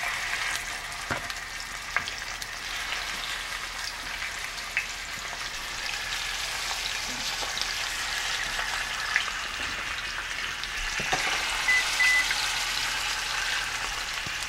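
Chicken pieces frying in hot oil in a pan: a steady sizzle, with a few short clicks now and then.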